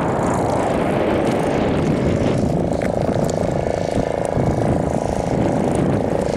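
A motor's steady drone over a constant low rumble, its pitched hum growing more distinct about two seconds in.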